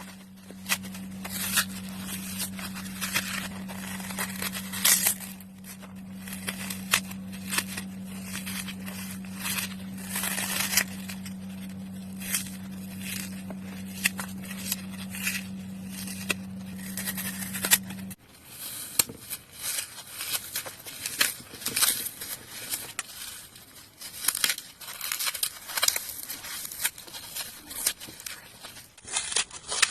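Dry floral foam being crushed: a dense, irregular run of crisp crunches and crackles. A low steady hum underneath stops abruptly about two-thirds of the way through.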